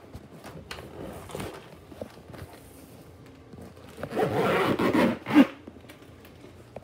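Zipper on a toiletry bag being pulled: a loud rasping run lasting about a second and a half, starting about four seconds in and ending sharply, after quieter rubbing and handling of the bag.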